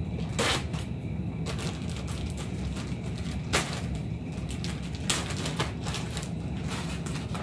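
Plastic package of cotton balls being pulled open and crinkled by hand, with a few sharp crackles, over a steady low hum.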